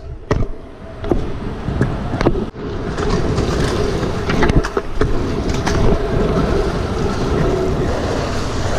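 Pro scooter's wheels rolling over asphalt, with wind rumble on the body-mounted camera and frequent short sharp clacks as the deck and wheels take bumps. The rolling is quieter for about the first second and a half.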